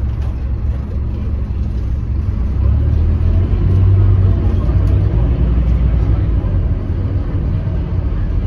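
Scania K310UB bus's rear-mounted engine and road noise heard from inside the passenger cabin: a steady low drone that swells louder about three to four seconds in, then eases a little.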